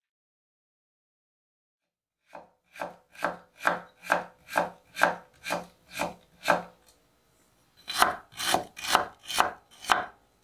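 Kitchen knife slicing ginger on a wooden cutting board: a steady series of cuts about two a second starting a couple of seconds in, a short pause, then a quicker run of cuts near the end.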